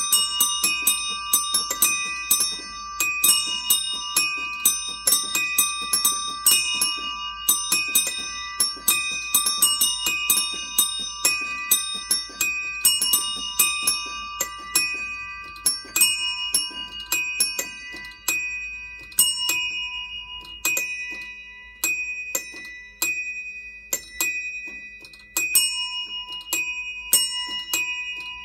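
A set of small tuned bells struck in a busy, irregular pattern, several strikes a second, each note ringing on and fading over the next. The strikes thin out in the middle and pick up again near the end.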